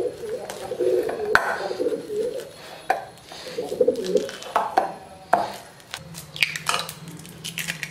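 Wooden masher knocking and squishing ripe bananas against a steel bowl, with scattered knocks, then a quick run of sharp taps near the end as an egg is cracked on the bowl's rim. A wavering cooing sound comes and goes in the background.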